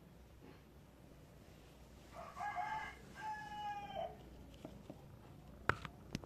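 A rooster crowing once, a cock-a-doodle-doo of about two seconds in two parts, the second part long and dropping at its end. Two sharp clicks follow near the end.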